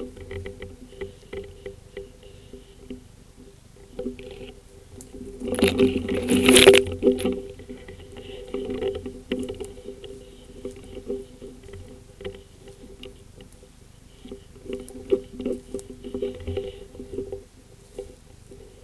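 Rustling, crackling and scraping of movement through forest undergrowth, twigs and brush rubbing close against the microphone, loudest in a rush of scraping about six seconds in. A low hum sits underneath.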